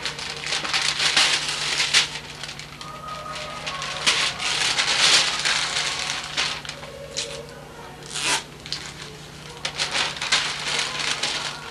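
Gift-wrapping paper crinkling, rustling and tearing as presents are unwrapped, in irregular bursts.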